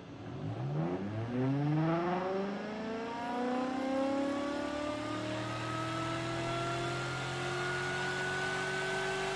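Homemade pulse motor starting and spinning up. Its whine climbs steeply in pitch over the first few seconds, then levels off into a steady high whine that keeps creeping up slightly as the motor nears its running speed.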